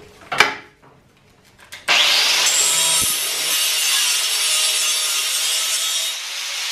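A few light knocks, then an angle grinder's disc bites into the go-kart's steel frame about two seconds in and grinds steadily, throwing sparks, with a loud, even hiss to the end.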